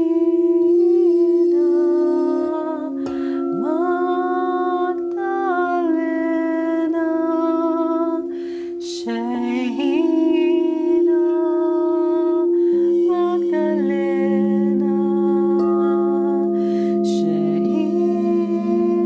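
A woman chanting long, gliding sung notes over the steady ringing tone of crystal singing bowls played with a wand. A second, lower bowl tone comes in about two-thirds of the way through.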